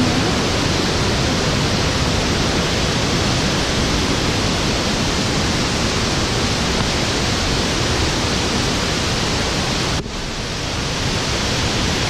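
Steady rush of a waterfall cascading over rocks. The sound drops suddenly about ten seconds in, then builds back up.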